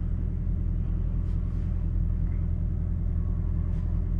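Semi truck's diesel engine idling steadily, a low rumble heard from inside the cab.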